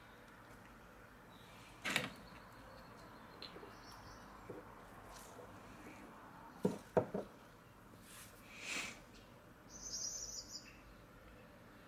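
Light knocks and clicks of objects being handled on a tabletop: one sharp knock about two seconds in and a quick cluster of three about seven seconds in. A short high-pitched chirping trill comes about ten seconds in, over a quiet background hiss.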